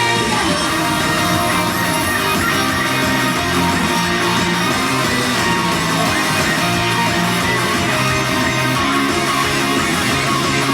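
Loud rock-style idol pop music with electric guitar and no singing in this stretch, an instrumental break between sung lines.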